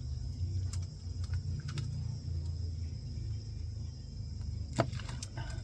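Scattered soft clicks and taps, one sharper click near the end, over a steady low hum.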